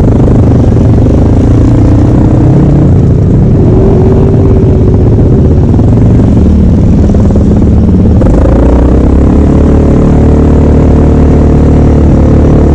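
Off-road vehicle engines running loudly, their pitch shifting up and down as they rev. The pitch climbs about eight seconds in.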